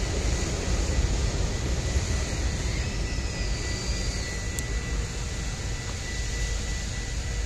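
Rumble of a passing train, steady and slowly fading, with a thin steady high whine over it.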